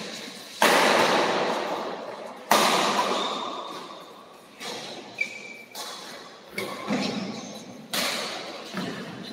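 Badminton rally: rackets striking a shuttlecock, with two hard hits, one just after the start and one about two and a half seconds in, each ringing out through the hall, then several lighter hits.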